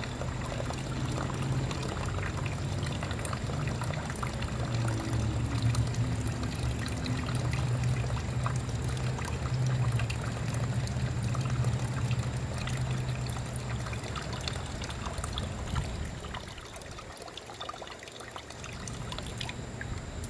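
Water pouring in a thin stream from a flood-damaged Yamaha R6's engine crankcase into a metal drain pan: floodwater being drained off before the oil drain plug is pulled. The flow slows and dies away about three quarters of the way through.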